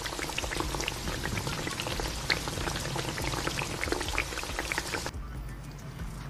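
Penne with tomatoes and garlic sizzling in a hot pan: a dense crackling hiss with many small pops. The higher part of the hiss drops away suddenly about five seconds in.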